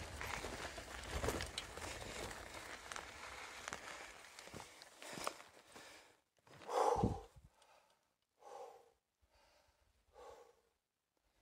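Rumbling wind and movement noise on the microphone for the first five seconds or so. Then it goes quieter, with three or four heavy breaths or sighs from a person about a second and a half apart; the first one, about seven seconds in, is the loudest.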